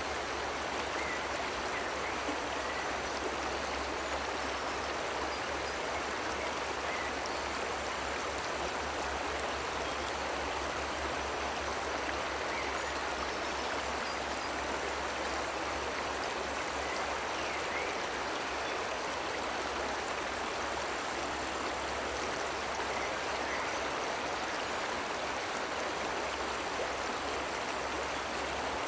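Cascading water of a waterfall rushing steadily, an even hiss that does not change.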